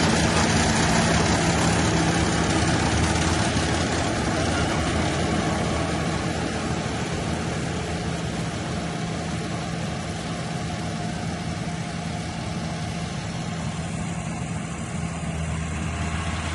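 Rice harvesting machine's diesel engine running steadily, with a low engine hum under a wash of mechanical noise that grows a little quieter over the first half.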